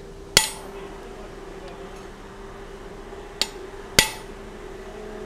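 Hand hammer striking a blacksmith's punch set on a red-hot 1-inch square mild steel bar on the anvil, driving the eye hole from the back side. Three ringing metal blows: one just after the start, then two about half a second apart near the end, the first of that pair lighter.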